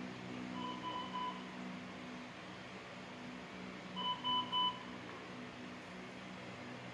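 Hospital monitor alarm beeping in groups of three short, even high beeps, a faint set about half a second in and a louder set about four seconds in, over a steady low equipment hum.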